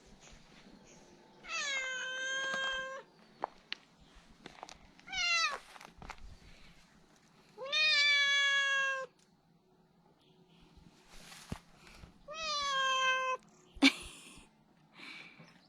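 Domestic cat meowing four times, three of the meows long and drawn out and one short, with a sharp click near the end.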